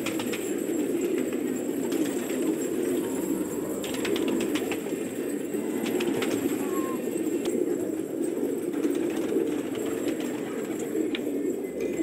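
Many domestic gola pigeons cooing together, a steady low burbling chorus, with a few short clicks about four seconds in.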